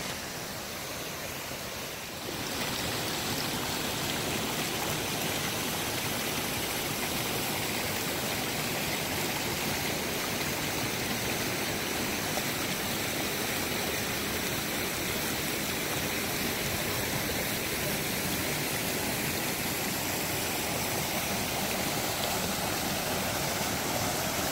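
Mountain creek rushing over boulders and small cascading waterfalls: a steady rush of water that gets louder about two seconds in.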